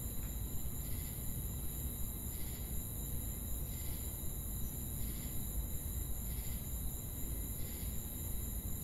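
Ambient outdoor soundscape: a steady, high insect chorus with a soft pulse repeating a little more than once a second, over a low rumble.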